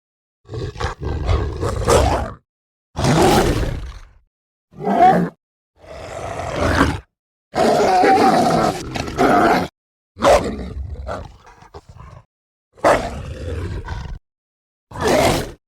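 A series of werewolf roars and snarls from film sound design, about eight separate sounds of half a second to two seconds each, with short silences between them.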